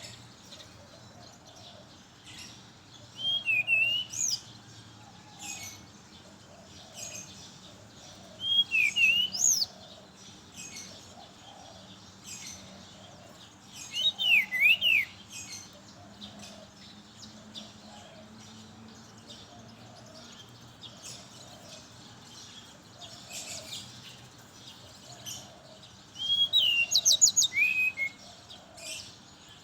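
Brown-chested jungle flycatcher singing: four short phrases of quick whistled notes sliding up and down, several seconds apart, with softer calls in between.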